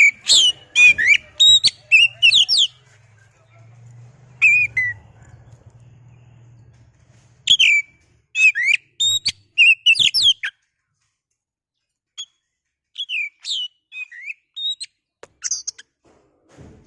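Oriental magpie-robin (kacer) singing loud, varied whistled phrases of quick rising and falling notes. The song comes in several bursts broken by pauses of a second or two.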